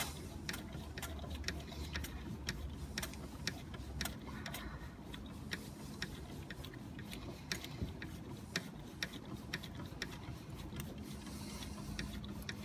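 Ratchet wrench clicking in quick, irregular ticks, a few each second, as the AC compressor's bottom mounting bolt is worked loose.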